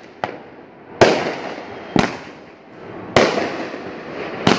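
Consumer aerial fireworks going off. A small pop is followed by four loud bangs about a second apart, each trailing off in a fading crackle.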